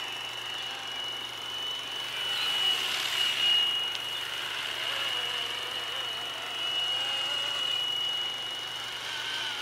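Electric RC helicopter in flight with Flywing electronics, giving a steady high whine over a hum that drifts in pitch. The sound grows louder twice, around two to four seconds in and again around seven seconds.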